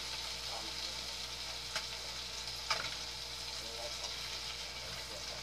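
Crappie fillets sizzling steadily as they fry in butter in a nonstick frying pan, with two sharp clicks of metal tongs about a second apart near the middle.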